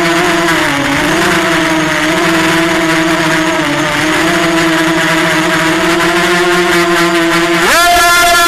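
Racing quadcopter's Scorpion M2205-2400KV brushless motors on a 4S battery, whining steadily in flight with the pitch wavering a little. Near the end the pitch jumps sharply higher as the throttle is punched. The uploader blames the bad noise the quad makes in flight on a lateral crack in one motor arm.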